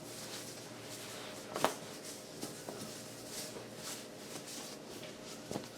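Quiet room tone with a faint steady hum and a soft click about one and a half seconds in.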